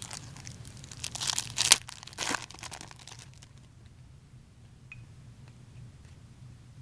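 A foil trading-card pack wrapper being torn open and crinkled by hand, in a run of crackly rustles lasting about three seconds with one sharp crack near the middle. After that only faint ticks, like cards being handled.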